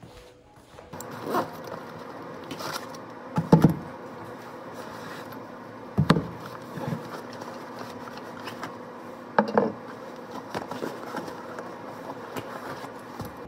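Bags and cases being set down and shifted on a wooden desk: a series of knocks and thumps, the loudest three at about three and a half, six and nine and a half seconds in, with softer taps and fabric rubbing between them.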